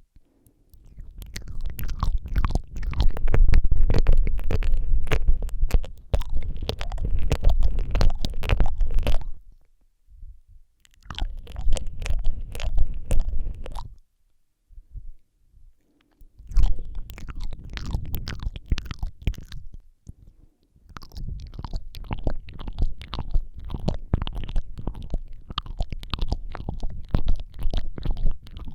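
ASMR mouth sounds made right up against a Rode microphone: wet clicks and smacks, licking and mouthing the mic, with a heavy low rumble from the close contact. They come in four stretches with brief pauses between them, near the start of the last third and a few seconds before it.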